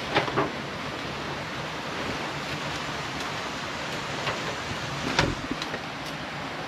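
A steady rushing noise, with brief rustles of people moving through leafy undergrowth just after the start and again about five seconds in.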